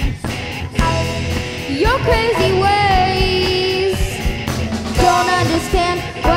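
Live rock band playing with electric guitar and drums under a singer's held, sliding notes; the voice slides up into a long note about two seconds in.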